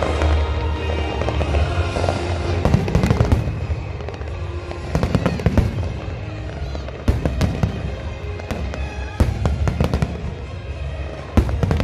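Aerial fireworks bursting: sharp bangs and crackling that come in clusters every couple of seconds.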